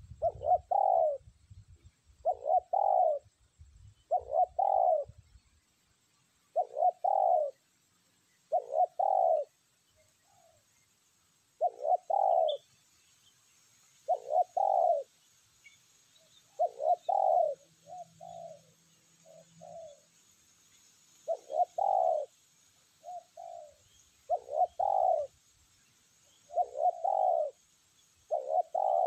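Spotted dove cooing repeatedly: a loud two-part coo about every two seconds, with shorter, softer coos between them in the second half.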